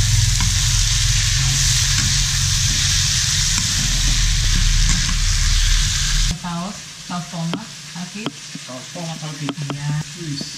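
Vegetables sizzling in a hot wok while a spatula stirs and scrapes them: a loud, steady frying sizzle over a low rumble. About six seconds in the sound drops abruptly to a much quieter sizzle with scattered clicks.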